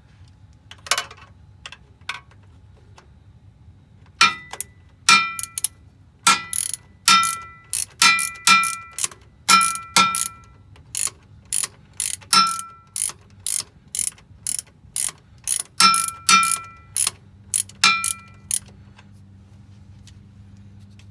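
Ratchet wrench with a 12 mm deep socket turning a bolt on the starter's wiring connector. It gives a string of sharp metallic clicks, each with a short ring, one or two a second, from about four seconds in until near the end, after a few lone clicks about a second in.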